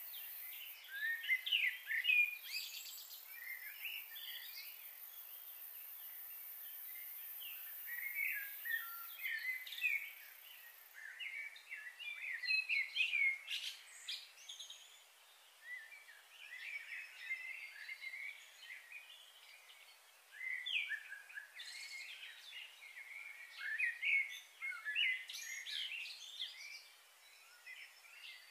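Wild birds chirping and singing in repeated short bouts, with a faint steady high hiss that stops about a third of the way through.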